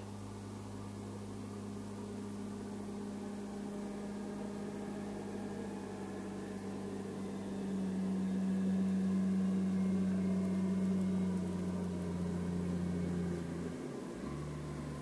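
CAT wheel loader's diesel engine running steadily as it pushes snow with its plow blade. It gets louder about eight seconds in, and its note drops in pitch near the end.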